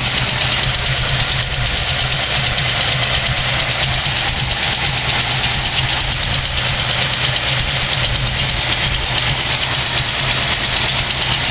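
Truck engine idling steadily, running for the first time in a while after a cold start, with a steady high-pitched hiss over the engine note. This is a weird noise that the owner doesn't like the sound of; one of the fan belts, behind an alternator, is a little loose.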